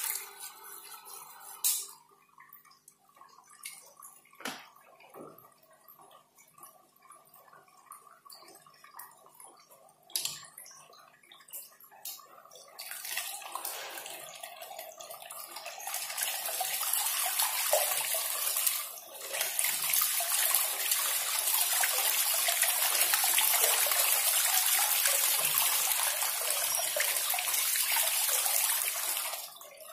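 Water from a homemade PVC fountain nozzle, pumped by a 775 motor, splashing onto a pond surface. It is fairly quiet with a few sharp knocks at first, then builds from about halfway into a steady loud rush as the spray opens into a wide dome-shaped sheet of water.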